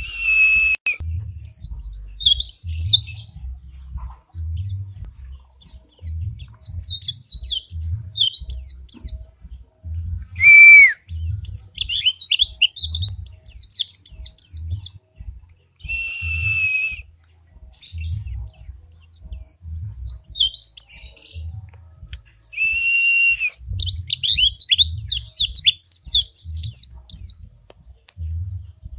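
Caged white-eye (pleci) in full song: a fast, continuous high twittering of rapid trills and glides, broken three times by a long steady whistled note.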